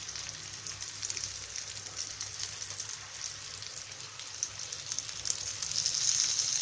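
Stuffed green chillies sizzling in a little oil in a nonstick frying pan over low heat: a steady hiss with scattered crackles, growing louder near the end.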